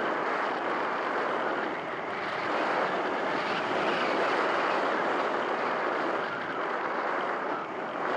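Airflow rushing over the microphone of a camera mounted on a small RC glider in flight: a steady rushing noise with no clear motor whine, swelling and dipping a little in level.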